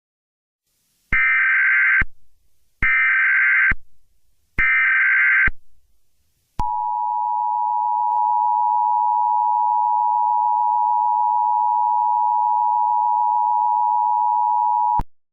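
Emergency Alert System tones: three short bursts of warbling digital data tones (the SAME header), then the EAS two-tone attention signal, a steady two-note tone held for about eight seconds that cuts off suddenly.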